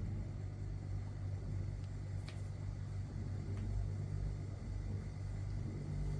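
Clothes dryer running: a steady low hum and rumble, with a few faint ticks.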